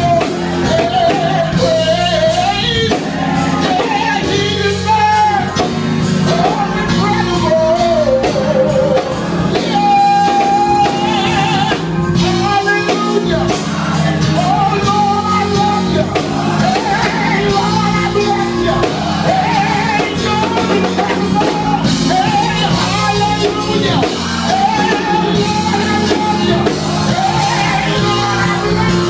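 A voice singing over instrumental backing with a steady bass line, with no pauses.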